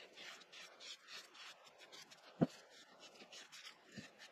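Foam brush stroking varnish onto the edges of a teak panel: faint, repeated rubbing strokes, with a light knock about two and a half seconds in.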